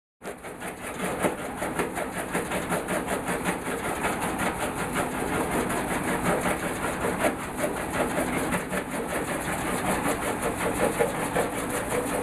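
Small jaw stone crusher running, a steady dense clatter of stone being crushed and rattling down the screen below it, full of sharp clicks and knocks. It cuts in suddenly right at the start.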